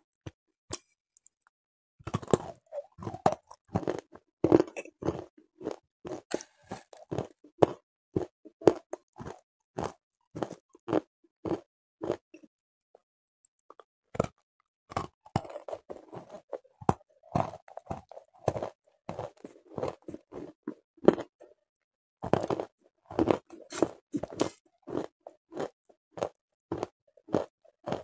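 A mouthful of water-dipped clay being bitten and chewed, a rapid run of crisp crunches that starts about two seconds in, breaks off for a couple of seconds midway, then goes on.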